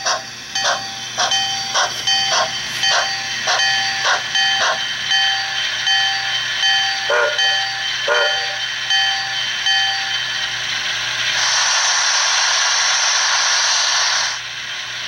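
Sound system of a model steam locomotive: the engine bell rings steadily, nearly two strikes a second, and fades out. Two short whistle toots follow, then a loud hiss of released steam lasting about three seconds near the end.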